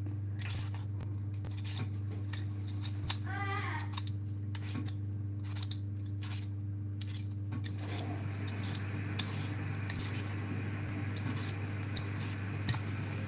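A raw potato being peeled with a Y-shaped vegetable peeler: quick, irregular scraping strokes of the metal blade across the skin, over a steady low hum.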